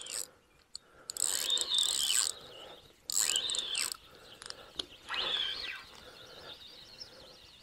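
Fishing reel's drag buzzing in three bursts, each about a second long, with a whine that rises and falls: a hooked fish stripping line off the spool as it keeps running.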